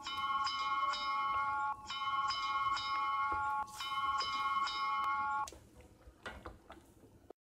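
Bell-like chime music: a short phrase of ringing struck notes played three times, stopping about five and a half seconds in, followed by a few faint clicks.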